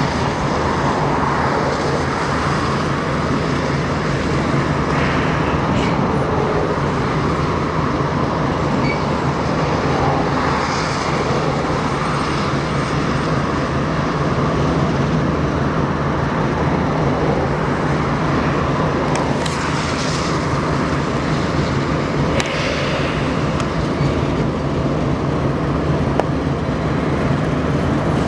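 Steady engine rumble mixed with traffic noise, holding an even level throughout with a constant low hum and a few faint knocks.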